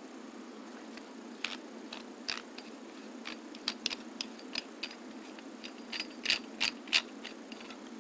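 Scattered sharp clicks and ticks as the base of a UniFi Video G3 camera is twisted and pulled apart by hand. The few loudest clicks come near the end, over a steady low hum.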